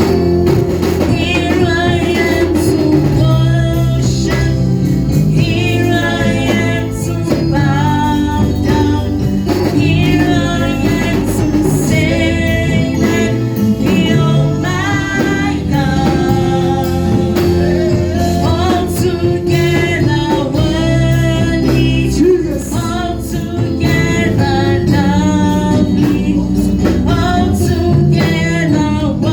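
Gospel worship music: singing over accompanying instruments and a sustained bass line.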